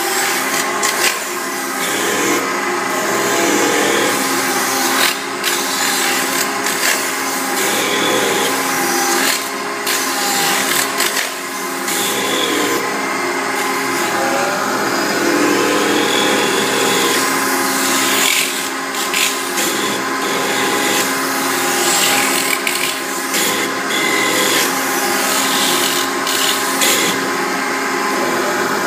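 CNC metal spinning lathe running, its forming roller pressing and rubbing a sheet-metal blank down over the spinning mandrel. A steady machine hum with several held tones under a continuous scraping rub, with scattered short clicks.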